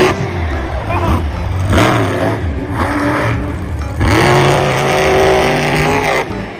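Car engine revving sound, rising in pitch about four seconds in, holding, then cutting off shortly before the end.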